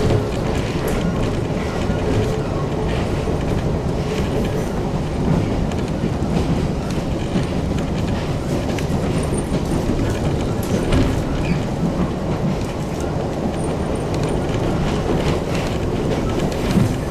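Electric train running on the line, heard from inside the passenger car: a steady rumble of wheels on track, with a few rail-joint clicks.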